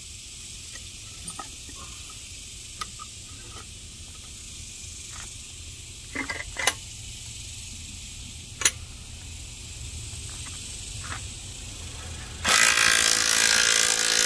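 Scattered light clicks as a thread tap is worked by hand in a cast-iron anchor held in a bench vise. Near the end, a drill spins up and runs steadily for about two seconds, driving the bottoming tap into the cast iron.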